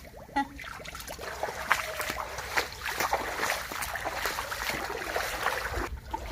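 Shallow floodwater splashing and sloshing as someone wades through it in rubber boots, a run of irregular splashy steps that eases off just before the end.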